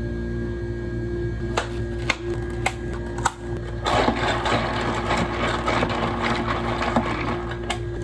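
Plastic dome lids snapped onto clear plastic cold-drink cups: several sharp clicks, then about three and a half seconds of dense plastic crackling as the lids are pressed down and the cups handled. Under it runs a steady machine hum.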